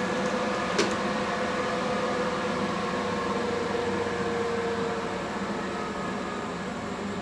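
HTP Invertig 221 TIG welder working on steel in DC mode: a steady hum and hiss, with one sharp click about a second in.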